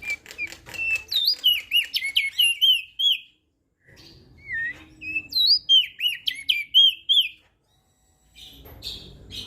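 Opior jambul (crested white-eye) singing: two fast runs of high, sweet whistled notes that slide up and down, each about three seconds long with a short pause between. A brief scratchy noise follows near the end.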